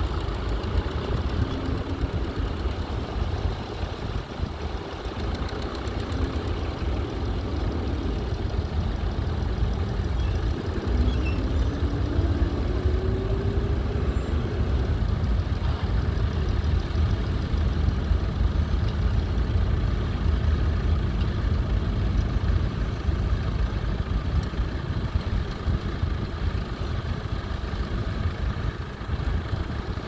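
McCormick International B275's four-cylinder diesel engine running steadily under load as the tractor pulls a plough through stubble, a heavy low throb that grows slightly louder as it draws closer.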